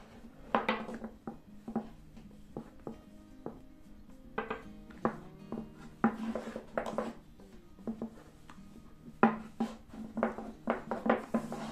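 Background acoustic guitar music, a run of plucked and strummed notes over a steady low sustained tone.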